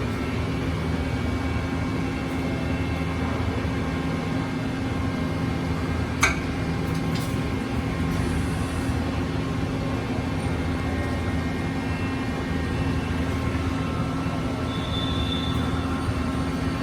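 Mori Seiki NL3000MC CNC lathe running with a steady hum made of several even tones. There is a single sharp click about six seconds in and a brief high tone near the end.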